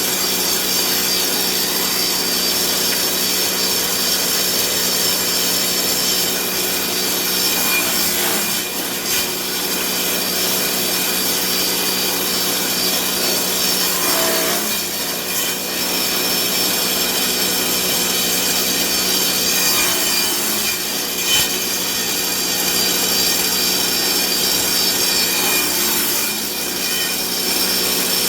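Electric wood-cutting machine running steadily with a constant motor whine while sawing through wood, the sound briefly changing about every six seconds.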